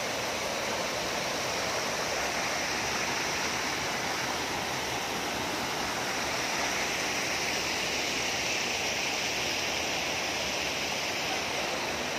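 River water pouring over a low weir and rushing over rocks below it: a steady, unbroken rush of falling and churning water.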